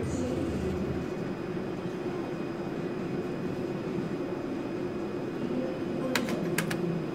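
Steady background din of a casino gaming hall around a slot machine, with a few sharp clicks about six seconds in.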